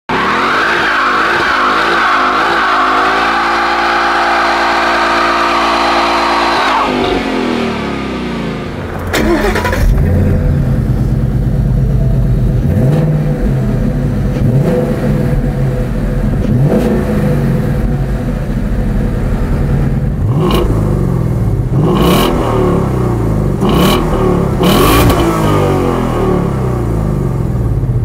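Ford Mustang GT's 5.0-litre V8 exhaust: first a steady high-revving run, then, after a change about nine seconds in, a low idle broken by repeated quick throttle blips that rise and fall back.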